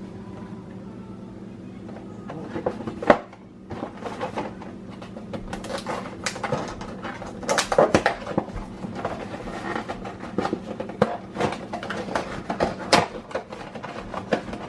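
Kitchen handling sounds: a cupboard being opened and cups, containers and other items knocking and clinking as they are moved and set down, with a sharp knock about three seconds in. A steady low hum runs underneath.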